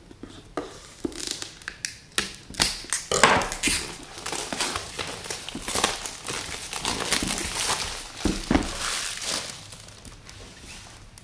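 Clear plastic shrink-wrap being peeled and pulled off a cardboard box, crinkling and tearing. A few scattered crackles at first, then dense crinkling through most of the rest, easing off near the end.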